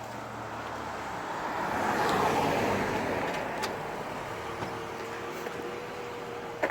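Motor vehicle noise that swells to a peak about two seconds in and fades away, as of a vehicle driving by, with a faint steady hum later on and a short knock near the end.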